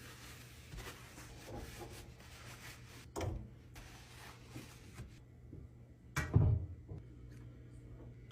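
Light knocks and rubbing of things being handled, with a sharper knock about three seconds in and a louder thump about six seconds in.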